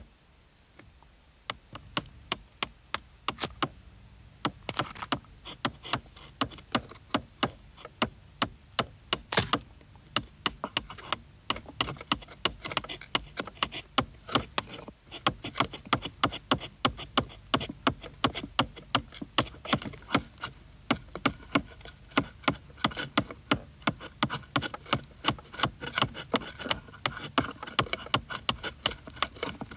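Mallet striking a Japanese V chisel (sankaku-tataki-nomi) as it cuts into wood: sharp taps, sparse at first, then a steady run of about two to three a second.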